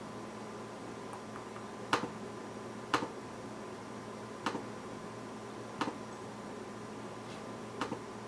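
Single sharp clicks on a Chromebook laptop, five of them one to two seconds apart, over a steady low hum.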